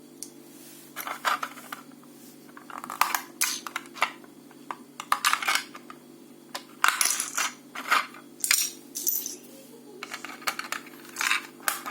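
Small plastic mosaic pieces clicking and clattering in irregular bursts as they are handled, over a steady low hum.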